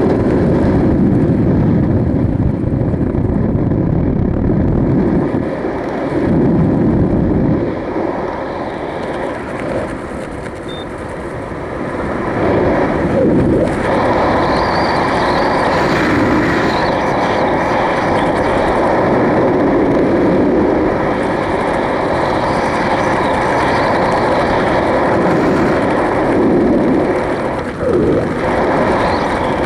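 Wind rushing and buffeting over a helmet camera's microphone while flying under an open parachute canopy, a loud gusty rumble that eases off for a few seconds about a third of the way in and swells again.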